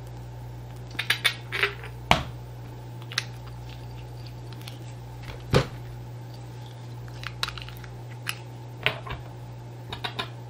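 Small glass essential-oil bottles handled over a plastic tray: scattered clicks and taps of caps and glass, with a louder knock about five and a half seconds in as a bottle is set down. A steady low hum runs underneath.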